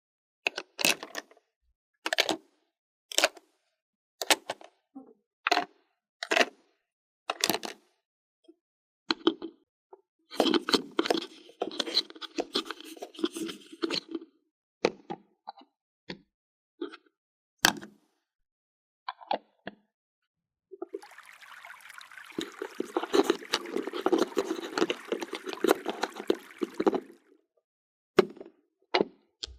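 Small plastic toy pieces being handled: sharp taps and clicks about once a second, then a few seconds of denser scraping and rustling. Near the end comes a steadier rustling stretch of about six seconds.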